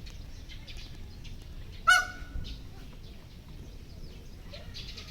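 Indian peafowl (peacock) giving one short, loud, cat-like call about two seconds in, with faint chirps in the background.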